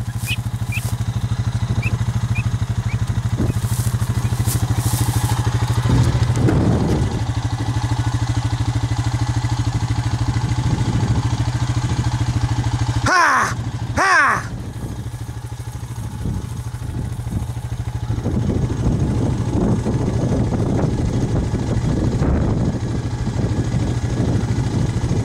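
Engine of the vehicle carrying the camera, running steadily at fairly constant revs. About halfway through come two short, rising-and-falling voice calls; the engine is quieter for a few seconds after them, then picks up again.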